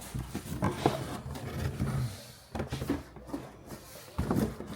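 Cardboard box and packaging being handled: irregular rustles, taps and knocks.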